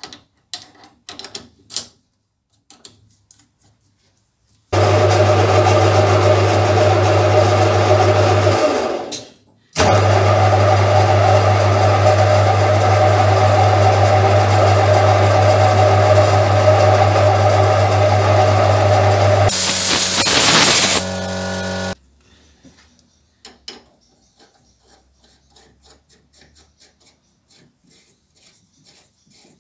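Small metal lathe running under power: a loud steady motor hum with the spindle turning, which stops briefly about nine seconds in and starts again. Around twenty seconds in a harsher, louder noise lasts a second or so before the machine runs down and stops, with light handling clicks of metal parts before and after.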